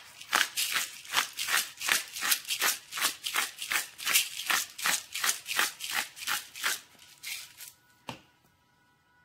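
Seasoning shaken or ground from a hand-held spice container onto a raw steak: rhythmic rattling strokes, about three or four a second. The strokes slow and stop about eight seconds in.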